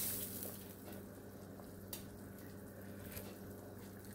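Pot of chicken stew simmering faintly on a gas stove, a soft even hiss under a steady low hum, with a short louder hiss at the very start and a couple of faint ticks.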